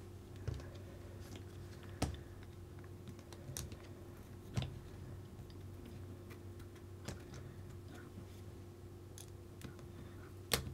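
Scattered light clicks and taps, a second or two apart, of small plastic kit parts and screws being handled and set in place on an RC car chassis, over a steady low hum. The sharpest click comes near the end.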